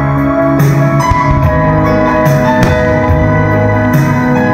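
Music with held chords over a moving bass line.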